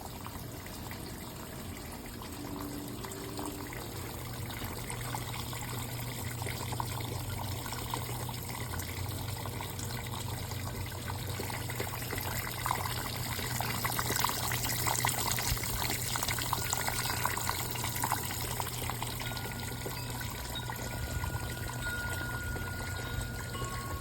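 Water trickling and splashing down a freestanding waterfall fountain, a continuous patter of falling water that swells a little around the middle, with a low steady hum underneath.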